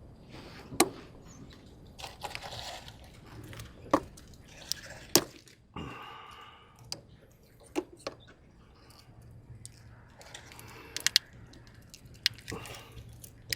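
Hands handling parts and debris: a series of sharp clicks and knocks at uneven intervals, with rustling in between and a short rasp about six seconds in.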